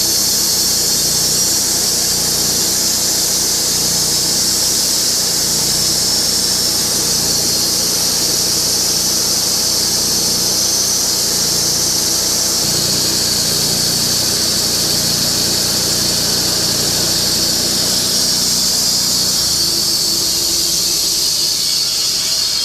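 Vallee Green Monster Wide bandsaw mill running under load, its new Lenox band blade cutting through a wide log: a steady high hiss over the low hum of the mill's engine.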